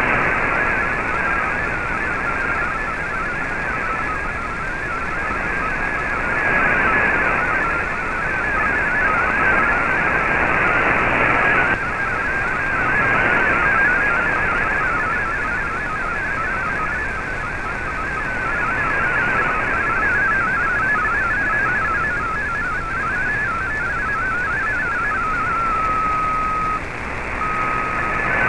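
MFSK32 digital data signal received on an AM shortwave receiver: a rapid warble of short stepping tones over a steady shortwave hiss, carrying text that decodes with only a few errors. Near the end the warble settles into one steady tone that breaks off briefly.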